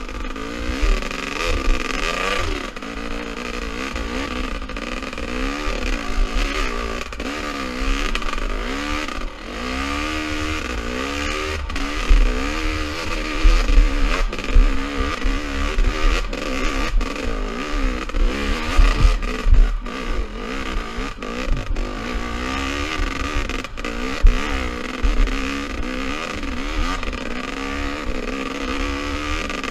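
Dirt bike engine under way, its revs rising and falling constantly as the throttle is worked, heard from the rider's helmet with a heavy low wind rumble on the microphone. Scattered knocks and rattles come from the bike over rough ground.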